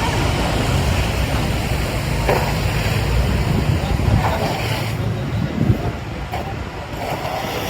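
City street traffic: a low rumble of passing vehicles that eases off about two-thirds of the way in, under a steady wash of street noise.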